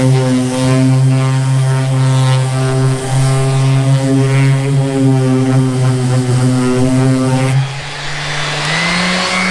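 Harbor Freight 2.8-amp 5-inch random orbital palm sander running with a steady motor hum, its 150-grit disc sanding paint off a canoe hull. Near the end the hum dips and then climbs in pitch as the motor speeds up.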